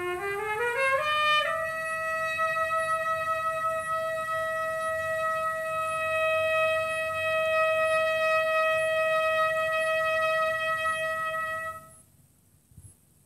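A single solo note line, voice or wind-like, climbs in small steps about an octave over the first second and a half. It then holds one high note steadily for about ten seconds and stops shortly before the end.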